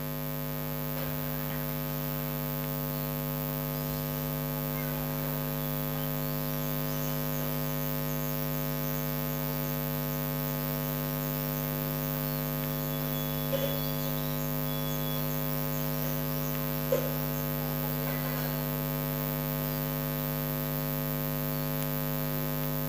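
Steady electrical hum with many even overtones, unchanging throughout, with two faint brief ticks about halfway through and a few seconds later.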